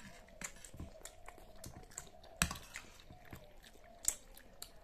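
Children eating noodles: close chewing and mouth sounds, with a scatter of short sharp clicks from spoons and forks against the plates, the loudest about halfway through.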